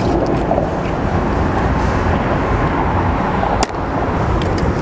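A chalk line snapped once against the roof underlayment about three and a half seconds in, a single sharp snap marking the top of the first batten row. Under it runs a steady low background rumble.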